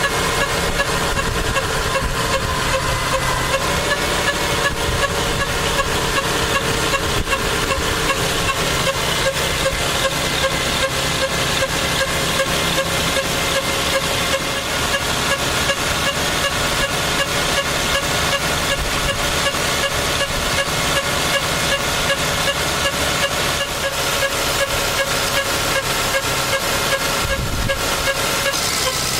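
Lexus RX300's 3.0-litre V6 engine running with a steady whine and a fast, even ticking. This is the strange noise the owner is asking mechanics to diagnose.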